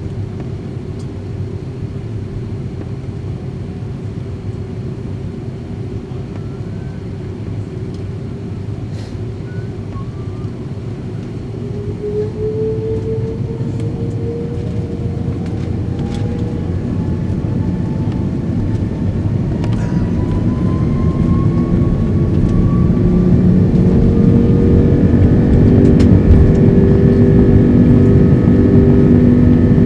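Airbus A330-200's Rolls-Royce engines heard from inside the cabin, spooling up to takeoff thrust. After a steady hum, a whine starts climbing in pitch about twelve seconds in, and the sound grows steadily louder into a deep roar with several steady tones near the end.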